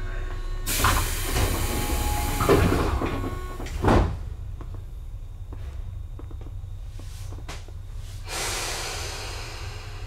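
Pneumatic sliding doors of a Tobu 9000-series train car closing: a hiss of air, then a loud thud as the doors shut about four seconds in. Another hiss of air comes near the end, over a steady low hum.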